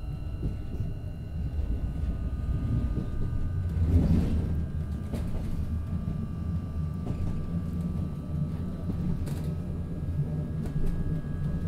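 Running noise heard inside a Stadler Citylink Class 399 tram-train on the move: a steady low rumble with a faint steady high whine, and a louder knock about four seconds in.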